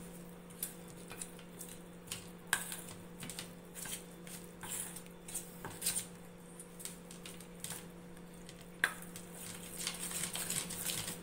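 Metal spoon stirring and beating a thick gram-flour and yogurt spice batter in a stainless steel bowl: soft wet mixing with irregular clicks and scrapes of the spoon against the bowl. A steady low hum runs underneath.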